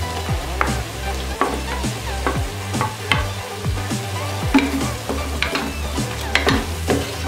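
Wooden spatula stirring and scraping chopped tomatoes into masala paste frying in an aluminium pressure cooker, with a steady sizzle and frequent small clicks of the spatula against the pan.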